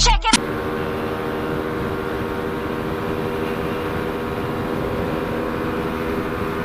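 CFMoto 400NK's parallel-twin engine running at steady revs while cruising at speed, with wind and road noise around it. The pitch stays level throughout, with no revving or gear changes.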